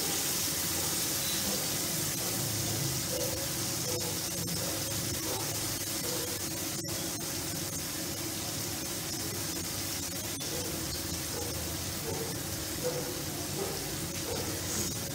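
Yogurt-and-spice masala paste sizzling and bubbling steadily in hot oil in a frying pan, being cooked down until the oil separates.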